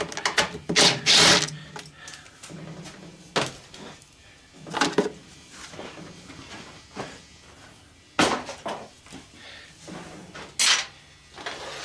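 Irregular knocks, clunks and scraping of a washing machine's cover being worked loose and pulled off by hand, with louder hits about a second in, around the middle and near the end.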